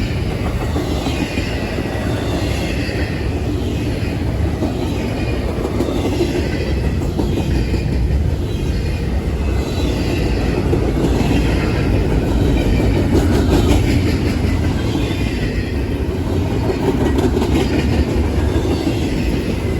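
Double-stack freight train cars rolling past at close range: a steady heavy rumble of steel wheels on rail with clicks over the rail joints and faint wavering wheel squeal.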